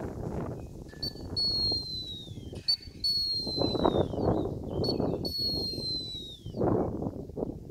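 Gundog training whistle blown three times, each a short pip followed by a long high note that drops a little in pitch at its end: a handler's signal to a dog on a blind retrieve. Wind rumbles on the microphone throughout.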